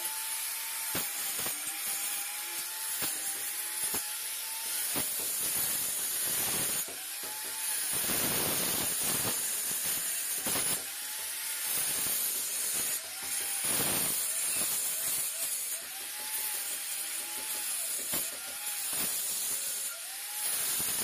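Handheld electric wall cutter grinding a channel into brick masonry. The motor's whine sags and recovers again and again as the disc bites into the brick, over a steady gritty hiss with frequent short scrapes.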